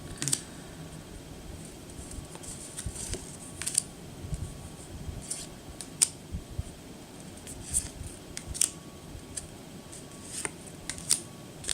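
Yu-Gi-Oh trading cards being handled and flipped through by hand: scattered, irregular short snaps and rustles of card stock against low room noise.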